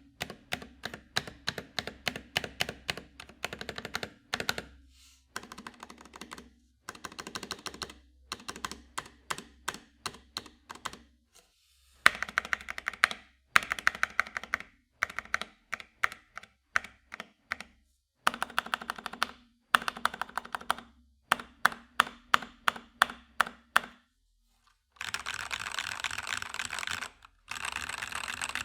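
FL eSports 68 mechanical keyboard with Kailh switches, keys pressed in quick runs of several clicks with short pauses between runs. Near the end comes a dense, rapid clatter of keystrokes.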